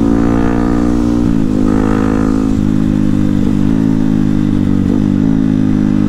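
Bored-up Yamaha WR155R single-cylinder engine, taken out to about 181 cc, running under way at a steady cruising note. Its pitch dips briefly a little over a second in and twice more later, as road speed eases off.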